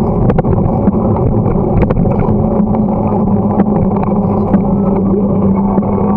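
Bicycle riding noise picked up by a bike-mounted camera: a continuous low rumble with scattered rattling knocks. A steady hum joins about two seconds in.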